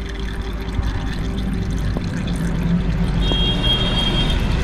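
Used engine oil pouring out of a Kawasaki ZX-6R's drain-plug hole into a catch pan in a steady stream, as the sump drains during an oil change.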